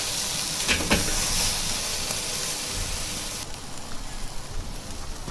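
Pork ribs sizzling directly over hot charcoal on a kettle grill, fat dripping onto the coals, with two clicks of metal tongs about a second in. The high sizzle drops away suddenly about three and a half seconds in.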